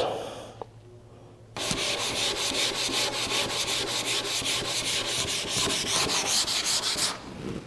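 Sandpaper rubbed by hand over a veneered wood panel in quick, even back-and-forth strokes. It starts about a second and a half in and stops near the end. The paper is being worked over still-wet shellac to force fresh sanding dust into the grain as pore filler.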